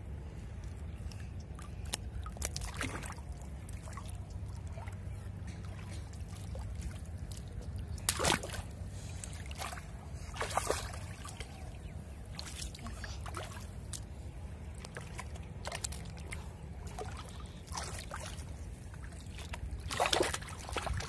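Shallow muddy water sloshing and splashing as hands grope through it and grab a large fish, with separate splashes, the strongest about eight and ten seconds in and again near the end. A steady low rumble runs underneath.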